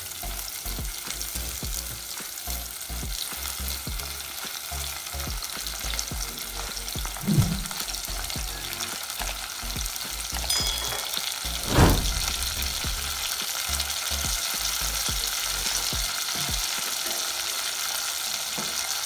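Sliced onions sizzling steadily in hot olive oil in a pan, with ginger-garlic paste just added on top. Light irregular knocks run through it, with two sharper, louder knocks about seven and twelve seconds in.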